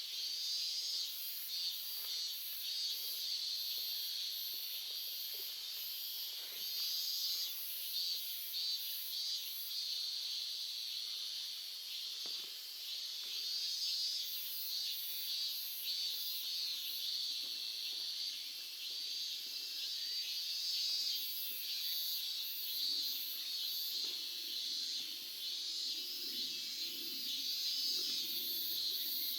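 Insects chirping: a steady high trill under very high rhythmic pulses, about three a second, that stop and start. A faint low murmur of running stream water comes in near the end.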